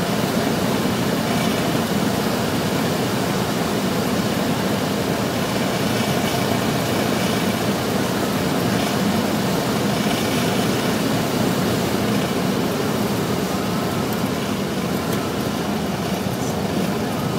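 Steady drone of a small single-engine propeller plane's engine and propeller mixed with airflow noise, heard from inside the cockpit.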